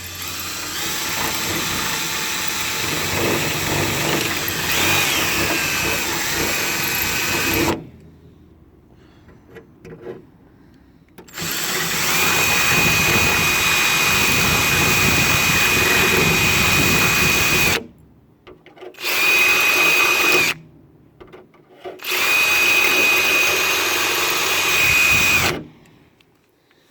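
Electric drill boring out bolt holes in the car bonnet's metal with a slightly larger bit, enlarging them to fit new bonnet latches. The drill runs in four bursts: two long ones of about seven seconds, then a short one and a final run of about three and a half seconds, with a steady high whine through the later runs.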